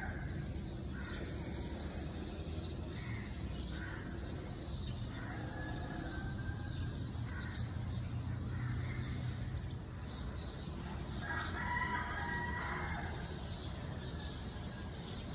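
A rooster crowing: the end of one crow at the very start and a full, long crow about eleven seconds in. Small birds chirp now and then over a low steady rumble.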